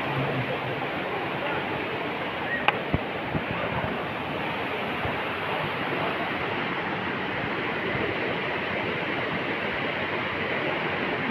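Steady rush of flowing river water, with two short sharp knocks about three seconds in.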